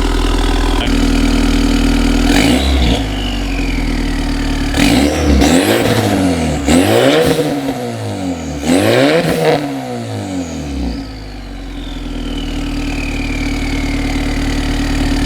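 2008 Acura RDX's turbocharged 2.3-litre four-cylinder idling through a newly fitted ATLP cat-back exhaust, revved once about two seconds in and then several times in quick succession before settling back to idle. After the revs a high turbo whistle falls slowly in pitch.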